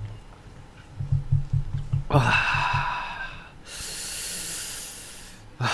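A man breathing hard against the burn of a ghost pepper. First a run of quick puffing breaths, then a short groan, then a long hissing breath of about two seconds.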